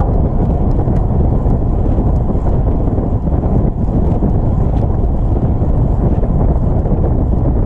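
Wind buffeting the microphone: a loud, steady low rumble with no engine note in it.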